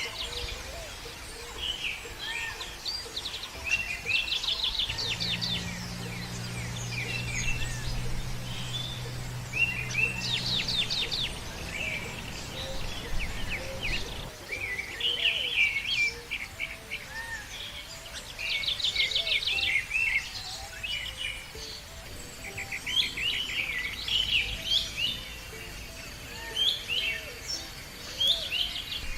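Several birds chirping and singing together, with short calls and repeated rapid trills overlapping throughout. A low steady hum sounds underneath for a few seconds, about five seconds in.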